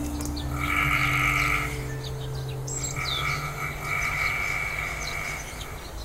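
Forest birds chirping in short falling notes, with a longer trilling call heard twice, over a low steady drone of ambient music.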